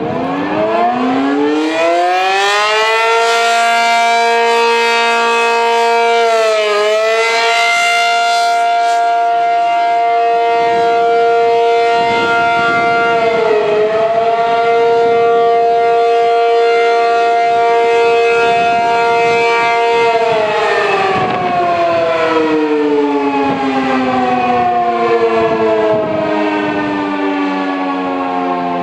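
ACA P-50 outdoor warning siren sounding its monthly test. It winds up in a rising wail over about three seconds and holds a steady tone with two brief dips. About two-thirds of the way through it winds down, falling in pitch.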